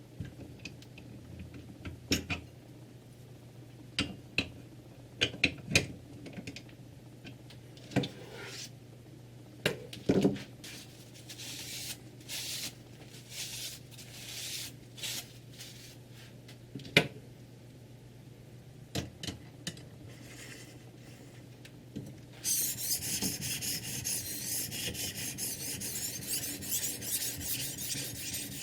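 Scattered clicks and knocks of parts being handled on a Ruixin Pro 3 guided knife sharpener. Then, from about two-thirds of the way in, a steady rasping as the sharpening stone is stroked back and forth along a kitchen knife's edge.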